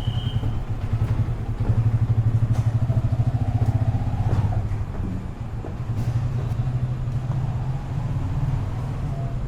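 A vehicle engine running with a steady, low, fast-pulsing hum, louder for a few seconds about two seconds in.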